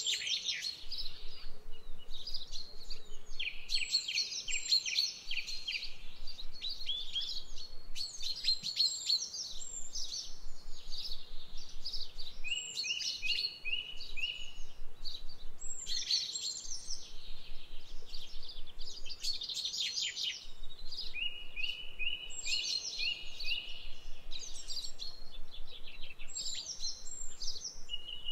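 Songbirds singing continuously: quick, repeated chirping phrases, with now and then a short trill of even, repeated notes from a second bird overlapping the song.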